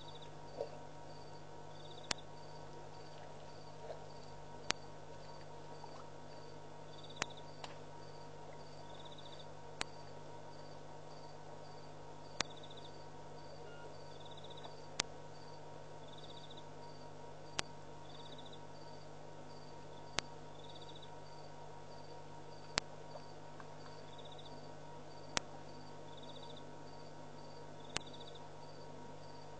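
Crickets calling at night: a steady pulsing high trill with short chirps repeating every couple of seconds. Under it runs a low steady hum, and a sharp click comes about every two and a half seconds.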